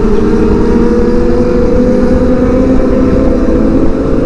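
Kawasaki ZX25R's 250 cc inline-four running at steady riding revs, its note rising slightly and then easing off, under a heavy low rush of wind noise.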